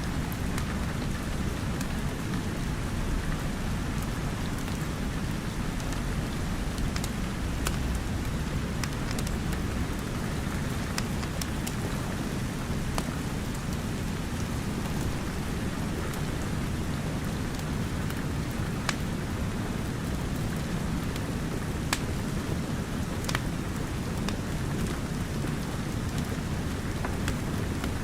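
Steady rain with a heavy low rumble, and scattered sharp crackles from a wood fire in a fireplace.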